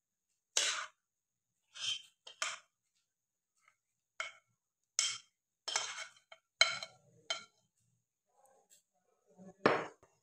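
A metal spoon clinking and scraping against a glass mixing bowl and an aluminium cake pan: a dozen or so short, irregular clinks, the loudest near the end.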